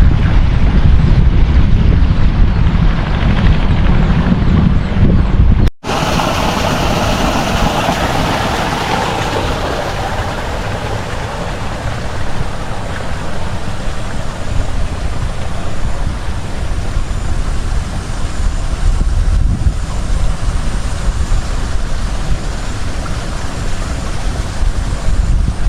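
Wind buffeting the microphone over the sound of sea surf: a steady, heavy rumble with no clear tone, broken once by a brief cut about six seconds in.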